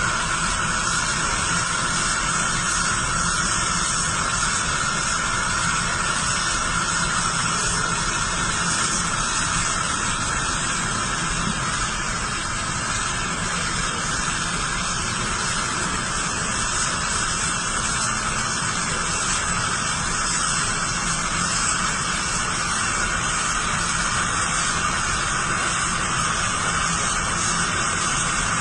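TIG (gas tungsten arc) welding arc burning with a steady, unbroken hiss.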